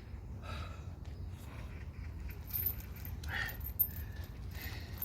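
A few light, scattered clinks over a steady low rumble.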